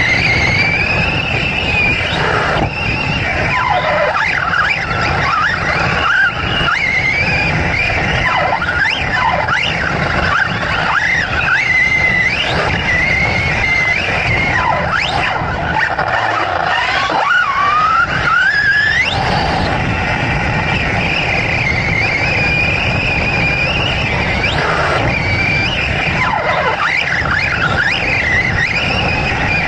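Large-scale electric RC off-road truck heard from on board: the motor and gears whine, rising and falling in pitch over and over as the throttle is worked. Tyres and chassis rattle and crunch over the dirt track underneath.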